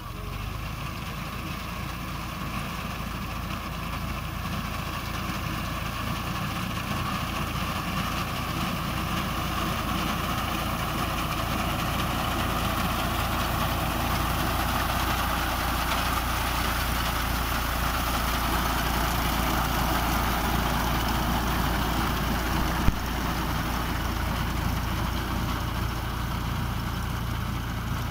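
Tractor with a front-mounted reaper cutting paddy: its diesel engine runs steadily under load, growing gradually louder as the machine comes close and easing off slightly near the end. A single sharp click is heard late on.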